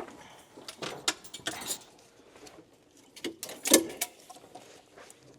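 Scattered metallic clinks and knocks as the aluminium cylinder head is lifted off a Toyota 2JZ engine block. The loudest knock comes near the middle.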